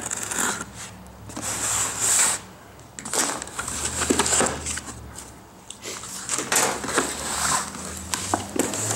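Cardboard shipping box being cut open and handled: a knife slitting the packing tape, and cardboard rustling and scraping against a metal tabletop, in irregular bursts with a few sharp clicks.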